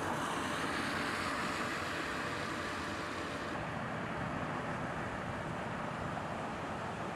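Steady outdoor background noise: a low rumble with a hiss over it, no distinct events; the highest part of the hiss drops away about three and a half seconds in.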